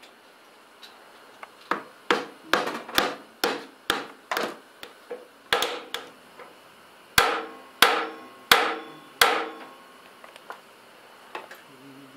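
Hammer blows on a steel driver seating a bearing race into a Honda VTX1300's steering head: about fifteen metal strikes over some eight seconds, each ringing briefly, ending in four heavy, evenly spaced blows.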